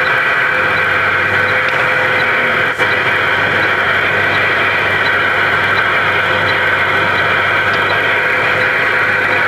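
Vehicle engine running steadily, heard from inside the cab, with a faint regular tick about twice a second and a brief click near the middle.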